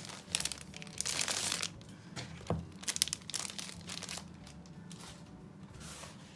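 Clear plastic packaging sleeve crinkling as paper planner inserts are pulled out of it, in bursts over the first few seconds, with a light knock about two and a half seconds in, then quieter handling.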